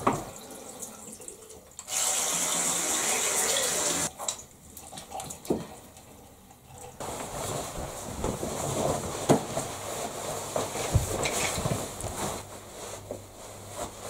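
A bathroom tap runs into a basin for about two seconds, then shuts off. A few soft knocks follow.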